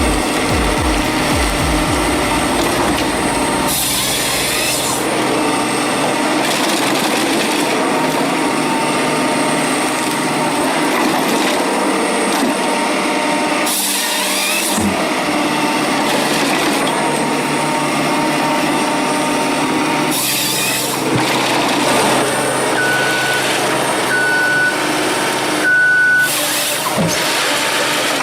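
Heavy logging machinery running steadily, the sound changing abruptly every several seconds, with three short high beeps near the end.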